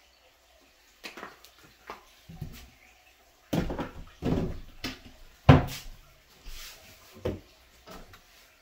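Kitchen handling noises: an irregular string of knocks and clunks as things are moved and set down, the loudest about five and a half seconds in.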